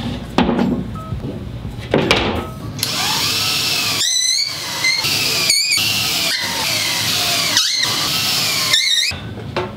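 A sheet of fibreboard knocks down onto a wooden frame, then a cordless drill drives screws through it into the frame in several runs of a second or so. The motor whine rises and falls in each run, with short stops between screws.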